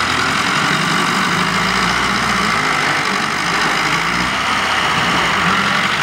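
Farm tractor's diesel engine working under load as it pulls a trolley full of soil up a mound of loose earth, its pitch wavering.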